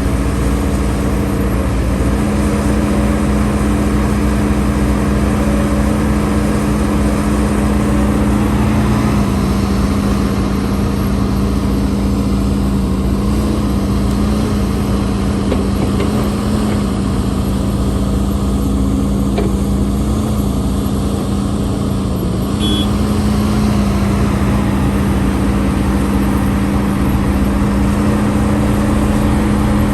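HIDROMEK HMK230LC excavator's diesel engine running steadily, its pitch sagging slightly now and then as the hydraulics take load.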